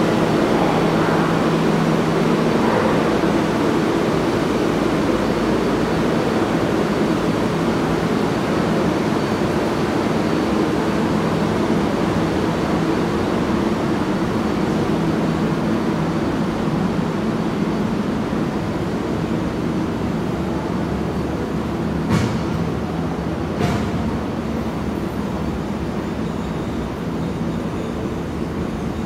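Steady rumble of an underground subway station, slowly fading, with two sharp clicks about three-quarters of the way through.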